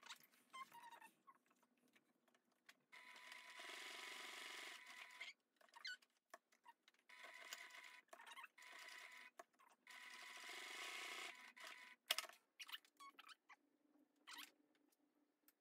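Sewing machine stitching a narrow folded fabric strip in three short runs of one to two seconds each, with a steady whir. Scattered sharp clicks and handling noises follow near the end.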